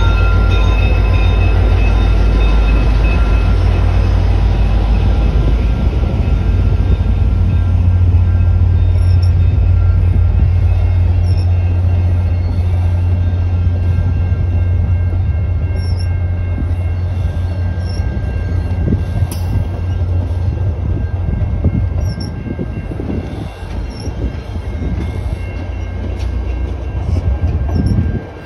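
VIA Rail F40PH-2D diesel-electric locomotive pulling a passenger train away from a station. It runs under power with a steady low rumble and a whine that fades over the first several seconds, followed by the passenger cars' wheels rolling past on the rails.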